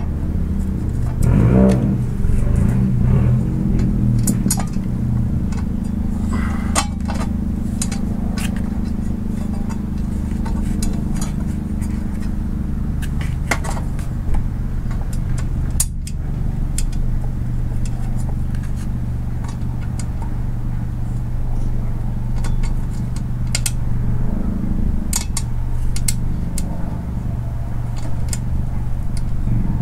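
Scattered light clicks and taps of small screws and plastic parts being handled while a shift box's cover is fitted back on, over a steady low drone.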